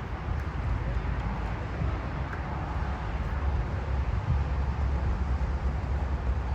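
Steady outdoor background noise with a strong, uneven low rumble.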